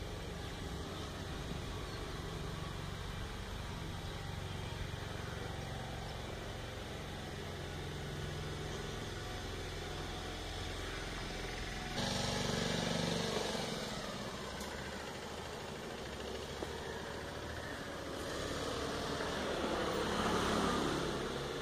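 Motor vehicle engine running steadily with a low hum; the sound changes abruptly about twelve seconds in, and a louder swell rises and fades near the end.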